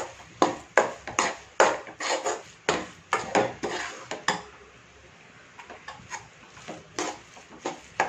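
A metal spatula knocking and clinking against the metal pan as the vegetable stuffing is stirred. The knocks come about two to three a second for the first four seconds, then turn fewer and lighter.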